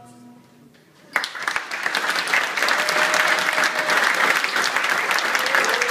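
The last notes of music fade away, and about a second in an audience bursts into steady applause that carries on.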